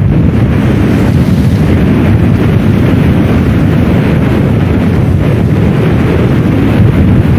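Heavy wind buffeting the microphone: a loud, steady low rumble with no clear engine note or separate knocks.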